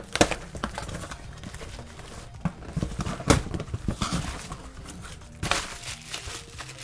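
A cardboard shipping box being cut open with a blade and its flaps pulled back: irregular scrapes, crinkles and taps of cardboard and tape.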